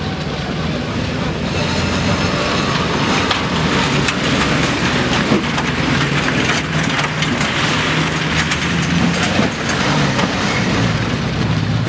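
Off-road 4x4 engines running hard under load as the vehicles churn through mud and ruts. From about a second and a half in, a dense crackling hiss of tyres tearing through the ground and clods of mud and dry reeds joins the engines.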